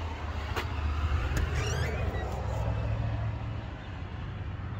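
A wooden entry door being unlatched with a click and swung open with a brief squeak, over a steady low rumble.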